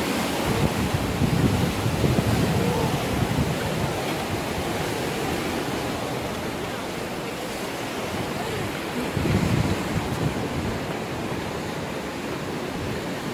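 Wind buffeting the microphone in gusts, strongest near the start and again about nine seconds in, over a steady rush of surf breaking on rocks.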